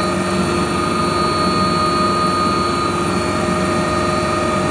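Passenger helicopter in flight, heard from inside the cabin: a loud, steady drone of engine and rotors with a constant whine running through it.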